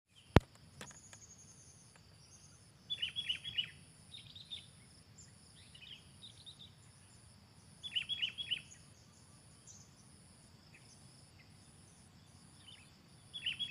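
Birds calling from the trees in three short bursts of quick, high chirps, over a steady high insect buzz; a single sharp click sounds near the start.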